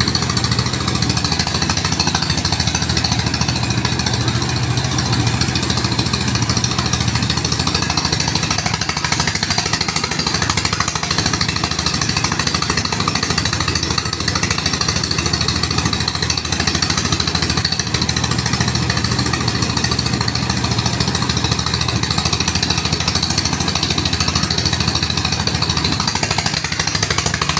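Motorised rice threshing machine running steadily, its engine and threshing drum making a loud, continuous mechanical rattle with a low hum underneath.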